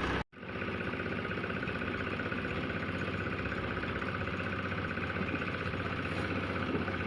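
An engine running steadily at idle, with an even hum. It drops out for a split second just after the start and picks up again unchanged.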